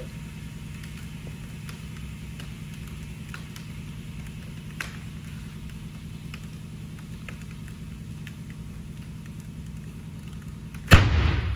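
A 55-gallon steel drum implodes with a sudden, very loud bang about eleven seconds in, ringing briefly. The capped drum is crushed by air pressure as the steam inside condenses in an ice and liquid-nitrogen bath. Before it there is only a steady low hum with a few faint ticks.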